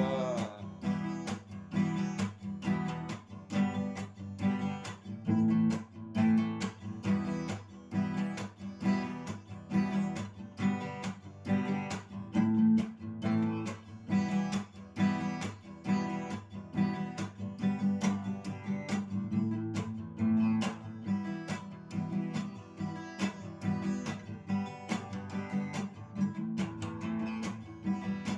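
Acoustic guitar strummed in a steady rhythm, a few strokes a second: the instrumental break between the chorus and the next verse of a song.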